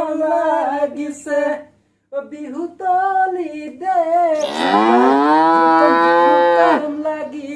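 A person singing short, wavering phrases, then one long held note lasting about two seconds that slides up at its start.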